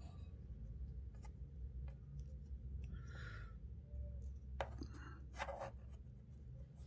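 Faint handling sounds as a rubber damper ball is pushed and tugged through the hole of an anti-vibration plate: a brief rubbing scrape about three seconds in and a few light clicks.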